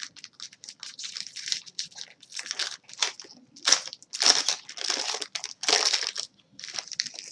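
Foil wrapper of a Topps baseball card pack crinkling as it is torn open and crumpled, and the cards are slid out, in a string of irregular rustles.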